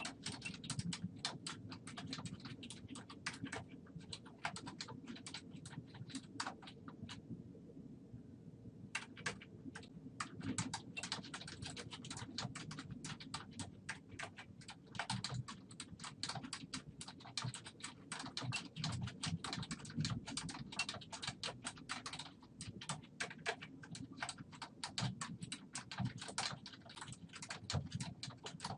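Typing on a computer keyboard in quick, continuous runs of key clicks, with a brief pause about seven or eight seconds in before typing resumes.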